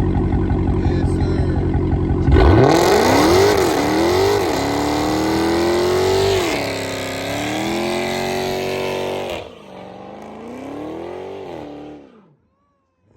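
Car engine doing a burnout. A steady engine note, then about two and a half seconds in the revs jump and a hissing screech of spinning tyres sets in, the engine pitch rising and falling, for about seven seconds. The driver then lets off and the engine drops and fades away.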